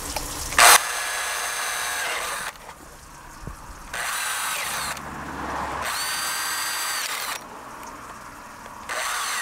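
Cordless drill boring holes through a PVC pipe, running in four short bursts with pauses between them as the bit is moved along the pipe. A sharp knock comes just before the first burst.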